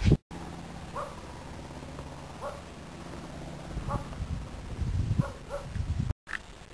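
A dog barking, about five short barks spaced roughly a second and a half apart, over a steady low hum.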